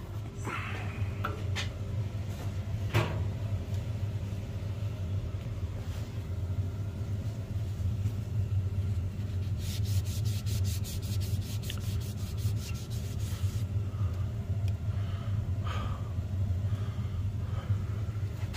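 Commercial gas water heater running with a steady low rumble as it is lit and fired up. About ten seconds in comes a rapid run of sharp clicks lasting a few seconds, with a few scattered knocks near the start.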